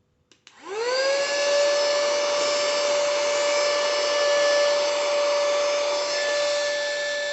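Portable cordless rechargeable mini vacuum cleaner switched on with a click, its small motor winding up over about half a second to a steady high whine and running at full speed.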